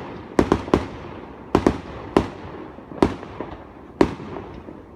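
Fireworks going off: a run of irregular sharp bangs, some in quick pairs, each with an echoing tail.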